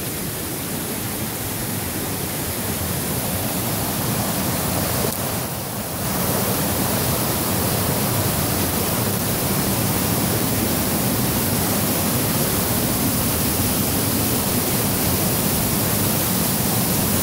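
Small creek waterfall running high after a day of heavy rain: a steady rush of falling water that grows louder over the first few seconds, dips briefly about five seconds in, then holds steady.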